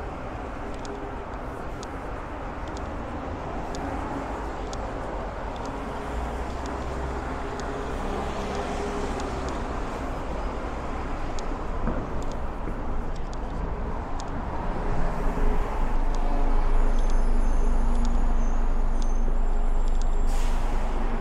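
Road traffic on a city street: car and van engines and tyres passing, a steady rumble that grows louder in the second half as vehicles pass close.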